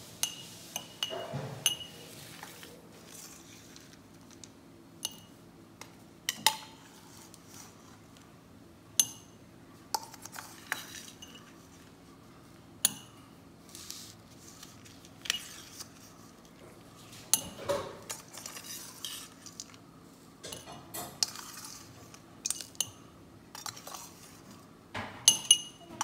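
Metal spoon clinking and scraping against a stainless steel bowl and glass tumblers while crushed Oreo cookie crumbs are scooped and spooned in. The clinks are sharp and irregular, each with a short ring, and come in a quick cluster near the end.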